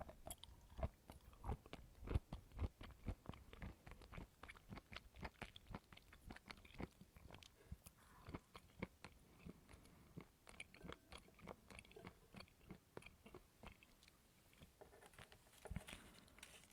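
A person biting and chewing coconut: a run of short, crisp crunches, about two to three a second, thinning out after the first half, with a last cluster near the end.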